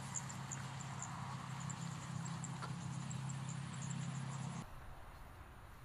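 Rice-field ambience: many short, scattered high chirps over a steady low hum. About four and a half seconds in, the sound cuts off suddenly to a quieter background.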